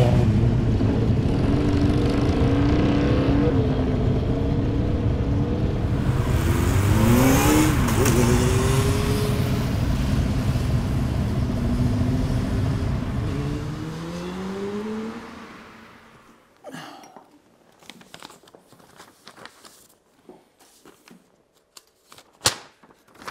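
Motorcycle engine running and revving, its pitch rising and falling as it passes, fading away after about fourteen seconds. Then a few light rustles of paper being handled.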